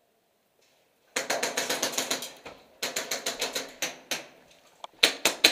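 Airsoft guns firing inside a building: about a second in, a rapid burst of roughly ten shots a second, then a shorter burst, then single shots and quick pairs.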